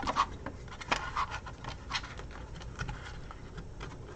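Light clicks and scrapes of thin pre-cut wooden pieces being handled and fitted together, tabs working into slots. The taps come thicker in the first couple of seconds, then thin out.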